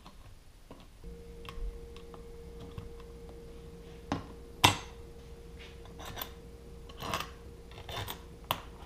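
Plastic and rubber mounting rings of a GIVI tank-lock flange handled and set onto a motorcycle fuel tank's filler cap: scattered clicks and taps, the loudest about four and a half seconds in. A faint steady hum starts about a second in.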